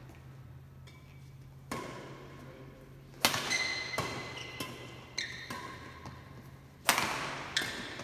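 Badminton rackets hitting a shuttlecock in a rally: a string of sharp hits roughly every half second to a second, the loudest about three and seven seconds in, some with a brief ringing tone. The hits echo in the large sports hall.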